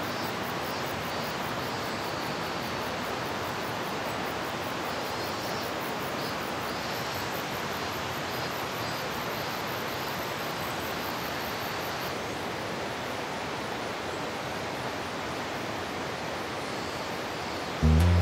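Steady rushing of running water, like a mountain stream, even and unbroken. Acoustic guitar music cuts in just before the end.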